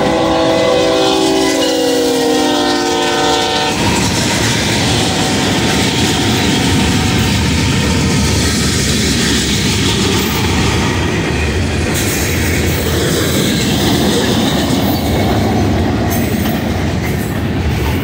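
Freight locomotive air horn sounding a chord of several tones that drops in pitch as the locomotive passes and stops about four seconds in. Then the steady rumble and clickety-clack of freight cars rolling by.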